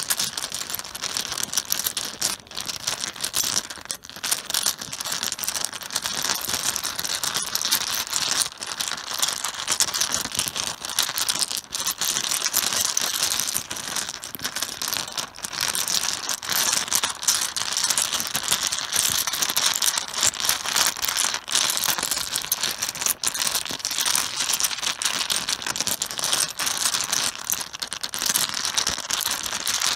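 Mahjong tiles clattering on a cloth-covered table, a dense run of small clicks and clacks of tile knocking on tile.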